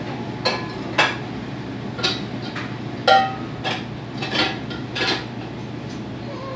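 Dishes and cups clinking and knocking together as they are handled and put away, about seven separate knocks, one near the middle ringing briefly, over a steady low hum.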